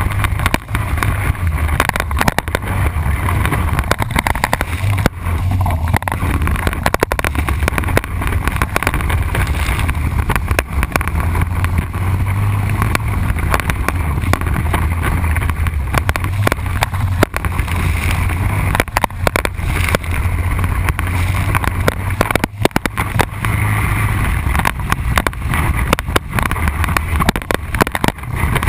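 Honda Rincon 680 ATV's single-cylinder four-stroke engine running under varying throttle on a rough trail. A low rumble rises and falls, and frequent knocks and rattles come from the machine jolting over the ruts.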